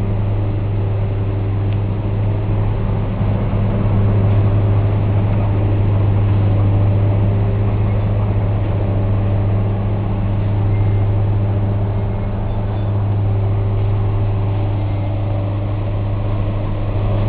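Track-renewal train's wagons rolling slowly past at close range on the rails, over a steady low engine drone.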